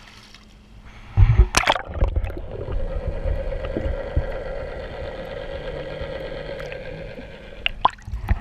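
Splash as the microphone plunges into the sea, then muffled underwater gurgling with a steady hum, and splashing again near the end as it breaks back out of the water.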